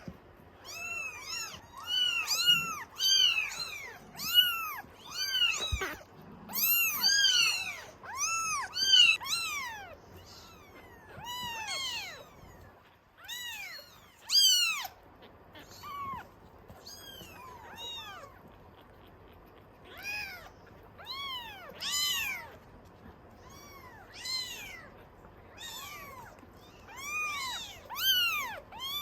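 Several Norwegian Forest Cat kittens mewing, high-pitched calls that rise and fall in pitch. They overlap in a dense chorus at first and thin to scattered single mews after about twelve seconds: the kittens are crying to be fed milk. A single knock is heard about six seconds in.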